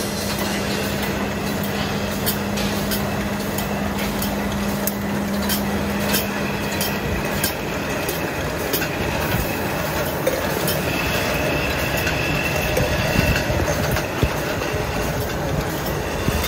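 Automatic carbonated-drink can filling and seaming line running: aluminium cans clattering through the star wheels and along the conveyor, with a steady mechanical rush and frequent sharp clicks. A low steady hum stops about seven seconds in.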